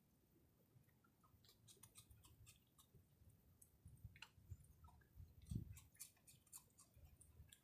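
Faint crunching and clicking of a raccoon chewing popcorn, with one low thump about five and a half seconds in.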